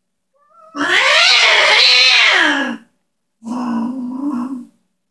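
Female cat yowling and growling at a male cat who wants to mate, refusing him. A long, loud yowl that wavers up and down in pitch, then a shorter, lower, steadier one.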